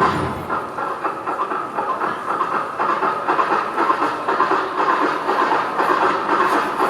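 A train running on rails, with a continuous clattering rumble and a steady hiss.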